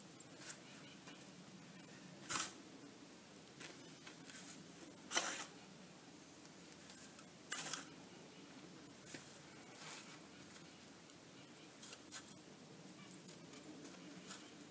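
Sand and gravel being scooped and packed by hand while a screed bar is set in the paver base: scattered short gritty scrapes, the three loudest a couple of seconds apart, with fainter rustles between.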